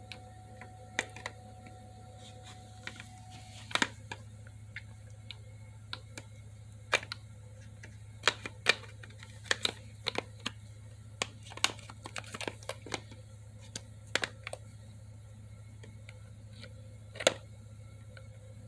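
Irregular plastic clicks and taps as the parts of a white plastic handpiece are handled and pressed together, over a low steady hum.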